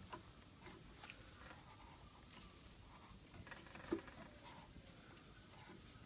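Near silence with faint handling sounds of gloved hands working an air suspension compressor: soft rustles and light clicks, with one sharper click about four seconds in.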